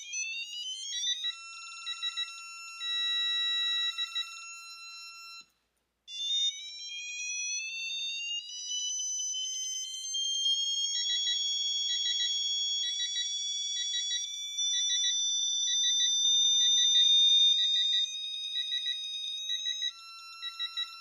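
Electronic beeping and tones from a digital torque adapter as torque is slowly built toward its 30 ft-lb setting. There are steady tones, a rising whistle from about six seconds in, and short beeps repeating about one and a half times a second through the second half.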